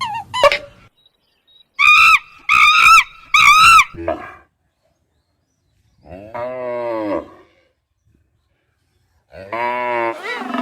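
Separate animal calls with silent gaps between them. About two seconds in come three short, bright, high calls. After a pause, a longer, lower call bends in pitch at about six seconds, and another low call begins near the end.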